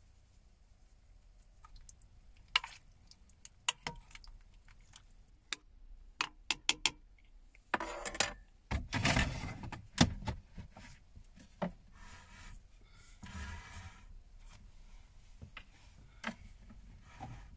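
Kitchen handling noises while seasoning a slow cooker stew: scattered light clicks and clinks of small spice jars being opened and shaken, with a louder noisy stretch of handling about eight to ten seconds in.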